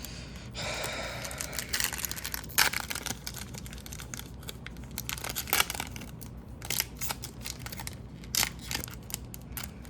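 A trading-card pack wrapper being torn open and crinkled, followed by many short crisp rustles and flicks as the cards are handled.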